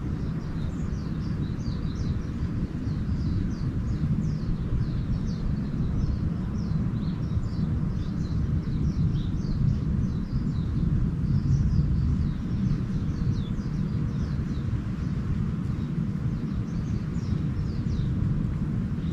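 Small birds chirping and twittering continuously, many short quick falling calls overlapping, over a steady low rumble.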